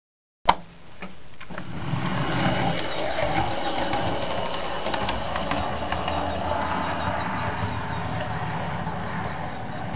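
HO-scale model diesel locomotive running along the track: a steady motor whir and rolling noise with scattered small clicks from the wheels, starting after a sharp click about half a second in.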